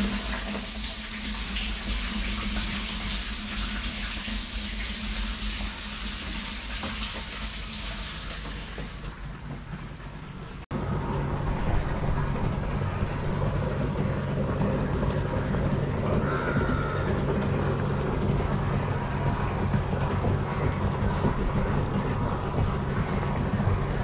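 Water pouring in a stream from the inlet pipe into an empty 500-litre plastic water tank, splashing as the tank fills. About ten and a half seconds in it cuts off abruptly, and a steady low rumble takes over.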